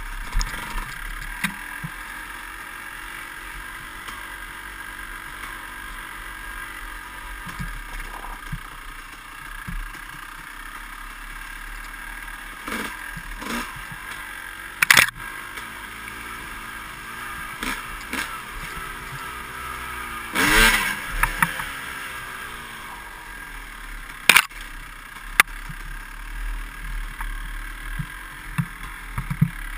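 Dirt bike engine running as the bike is ridden along a rough trail, with clatter and several sharp knocks from the bike jolting over bumps, the loudest about halfway through and a few seconds later.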